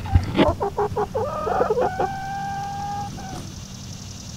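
Hen clucking in a nesting box: a quick run of short clucks, then one long drawn-out call of about two seconds. The hens are sitting on freshly laid eggs and are upset at being approached.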